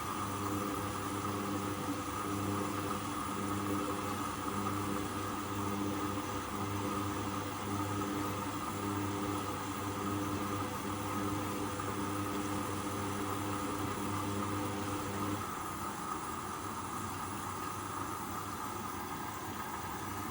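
Hoover Custom Vision washing machine running in its rinse, with a steady electrical hum from its motor or pump that cuts off about 15 seconds in. A steady, higher-pitched whirring and hiss carries on underneath.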